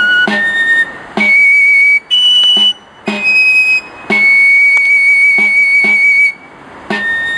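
Basque txistu (three-holed pipe) playing a slow, solemn melody of long held high notes, with a stroke on its tamboril drum at the start of many notes. A few short pauses separate the phrases, and the longest note is held about two seconds midway.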